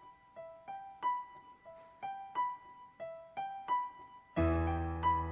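Keyboard playing a repeating rising three-note figure in the treble. Low held bass notes come in near the end, and the playing gets louder.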